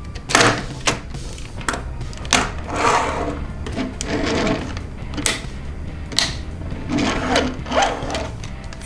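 Hard plastic transforming toy trucks being folded and fitted together by hand: a series of sharp plastic clicks and snaps, with scraping and rattling of parts sliding against each other between them.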